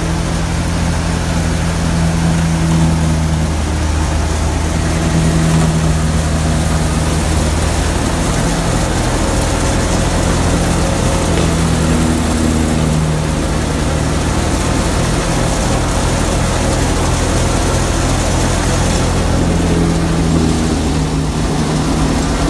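Massey Ferguson 385's four-cylinder diesel engine running steadily under load, driving a PTO-powered wheat thresher. The thresher adds a dense, even noise over the engine's low hum.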